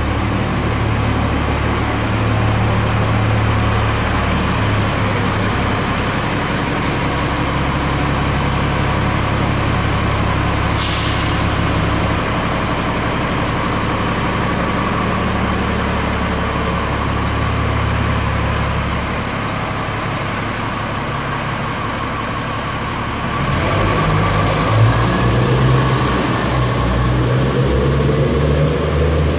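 City transit bus engine running with a steady low hum, with one short, sharp hiss of air brakes about 11 seconds in. Around 23 seconds in the engine note changes and grows louder.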